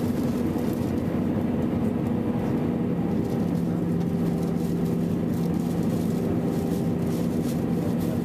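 Steady jet-engine and airflow drone heard inside the cabin of a Boeing 737 on its landing approach, with a constant hum. A second, lower hum comes in about three and a half seconds in.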